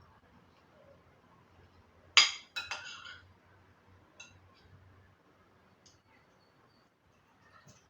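Tableware clinking: a sharp clink about two seconds in, then a brief ringing clatter, followed by a few faint light taps.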